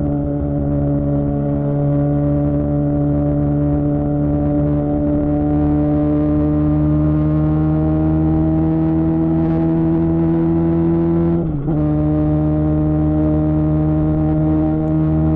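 Suzuki GSX-R600 K7 inline-four through a Yoshimura R11 exhaust, under way with the revs climbing slowly and steadily. About eleven and a half seconds in the engine note dips for an instant and comes back a little lower, like a quick upshift, then runs on steadily.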